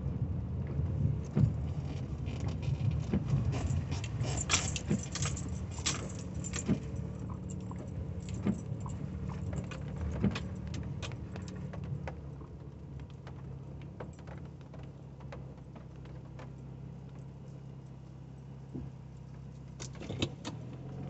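Inside a 1985 Cadillac Cimarron rolling slowly on a wet road with a steady low engine hum, and a run of sharp clicks and rattles over the first half. The car quietens about halfway through as it slows to a stop, leaving the engine humming, with a couple of clicks near the end.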